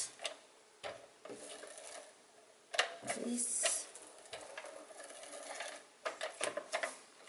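Two Scotch Advanced Tape Glider adhesive applicators being drawn along the edges of cardstock: short rasping whirs as each strip of adhesive tape is laid down, broken by sharp clicks and taps of the trigger and the applicator on the table.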